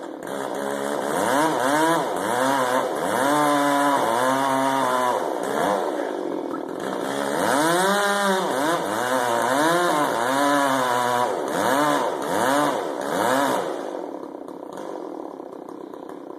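Two-stroke chainsaw revved up and down over and over, roughly once a second, each rev climbing and falling in pitch, then dropping back to a lower, steady idle near the end.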